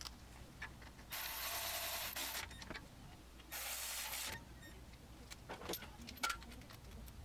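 Hand ratchet tightening the brake caliper bolts: two runs of rapid clicking, the first about a second long and the second a little shorter, followed by a few light metal tool clinks.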